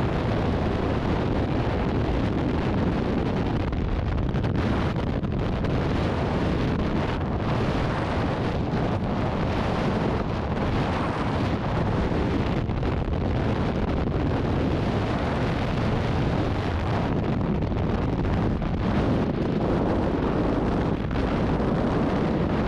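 Freefall airstream rushing over a skydiver's helmet-mounted camera microphone: a steady, unbroken wind roar.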